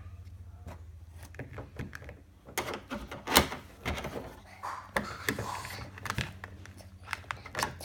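Small plastic toy figures being handled and fitted into a plastic case: a run of light clicks and knocks, with one louder knock about three and a half seconds in.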